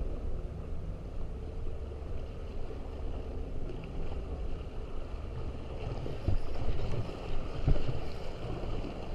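Wind rumbling across the microphone with water lapping at the rocks, and a few soft knocks from handling the rod and reel from about six seconds in.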